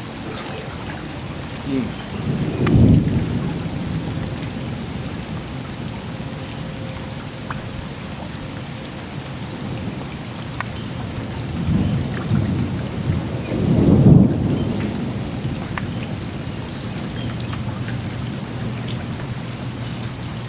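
Steady rain falling, with scattered drops ticking on nearby surfaces. Two low rolls of thunder build and fade, about three seconds in and again near fourteen seconds.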